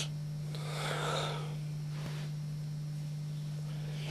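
A sleeping man breathing heavily, with one long noisy breath about a second in, over a steady low electrical hum.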